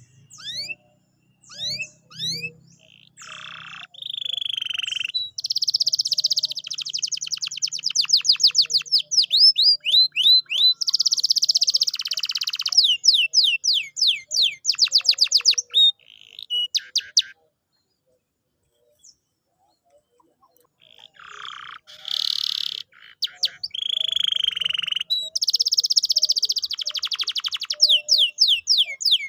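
Canary singing: long phrases of fast trills and rows of rapidly repeated, down-sweeping high notes, broken by a pause of a few seconds past the middle.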